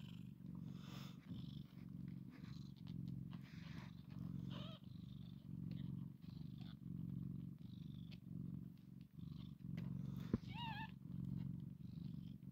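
Mother cat purring steadily while nursing her newborn kittens, the low purr swelling and fading about once a second. Two brief high squeaks cut in, one a little before the midpoint and one near the end.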